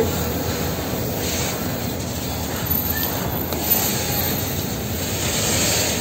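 Freight train boxcars rolling past close by: a steady rumble and hiss of steel wheels on the rails, with a few faint clicks.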